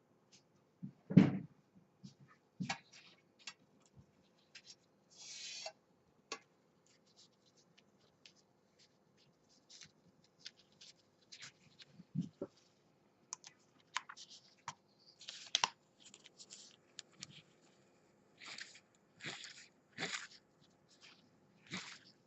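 Scattered clicks, knocks and short scrapes of hand work on small mechanical parts, with a louder knock about a second in and a faint steady hum beneath; no motor running.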